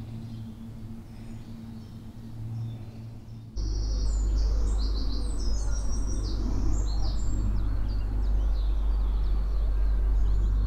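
A low steady hum for about three and a half seconds, then a sudden change to birds chirping and singing over a loud low rumble of wind on the microphone.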